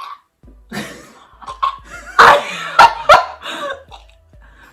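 A person coughing: a few loud coughs about two seconds in, with smaller ones around them.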